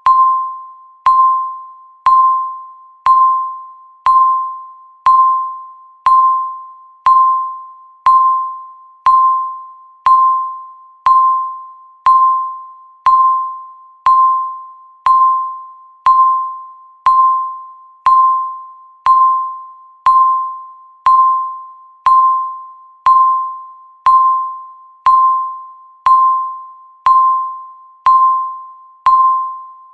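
Countdown timer beeping once a second: a single mid-pitched electronic beep, each starting sharply and fading out before the next.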